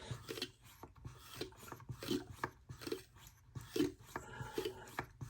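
STARESSO manual portable espresso maker being hand-pumped: a run of short rubbing, rasping strokes, about three a second, as pressure slowly forces espresso out of the spout.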